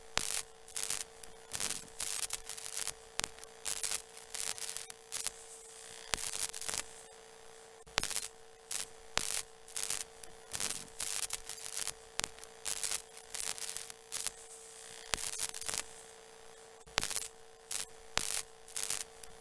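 A steady mid-pitched hum runs under irregular bursts of hissing static that cut in and out sharply, several times a second, some short and some lasting about half a second.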